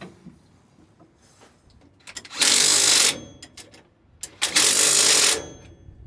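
Impact wrench run in two short bursts of just under a second each, with a few tool clicks around them.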